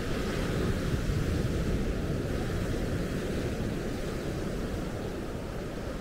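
Wind buffeting the microphone over the steady wash of surf on a sandy beach, swelling a little about a second in.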